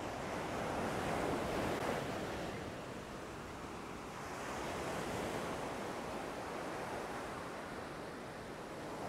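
Ocean surf breaking and washing up a sandy beach, a steady rush of water that swells louder about a second in and again around the middle.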